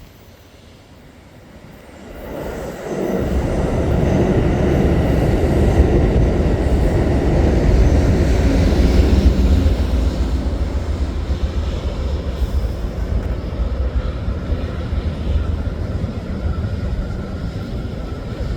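A train passing close by: a rumble of wheels on the rails that comes in about two to three seconds in, grows loud and stays steady.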